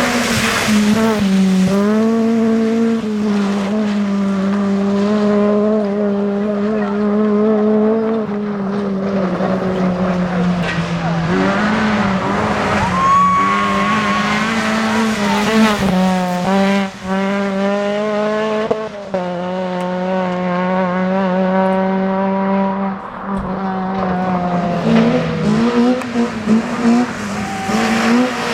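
Rally car engine running at high revs under hard driving. The pitch holds high, with short dips and steps every few seconds at lifts and gear changes.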